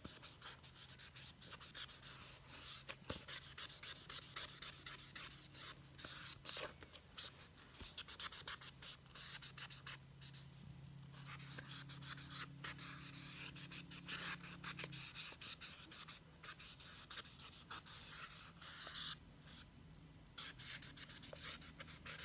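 Imagine Ink marker scribbling back and forth on a colouring-book page: soft, rapid rubbing strokes of the felt tip on paper, with short pauses between bursts of colouring.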